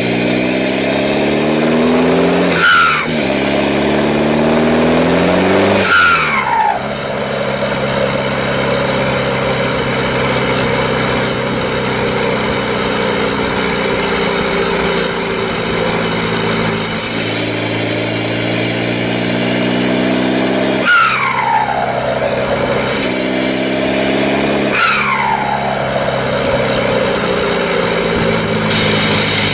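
Straight-piped, decatted turbo-back exhaust of a Škoda Fabia vRS 1.9 TDI PD diesel with a hybrid turbo, heard at the tailpipe while driving hard. The note climbs under acceleration and drops at gear changes about three and six seconds in, each with a short falling whistle, holds steady at cruise, then climbs through two more gears around seventeen to twenty-five seconds in before settling again.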